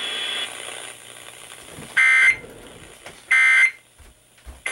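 Emergency Alert System end-of-message data bursts broadcast over FM radio: two loud, identical, buzzy digital bursts, each about a third of a second long and about 1.3 s apart, with a third starting at the very end. The bursts signal the end of the alert message.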